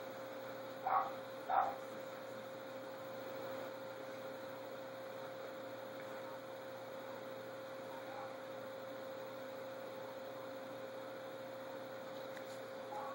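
Steady electrical hum, a single constant tone over a faint hiss, with two short brief sounds about a second and a second and a half in.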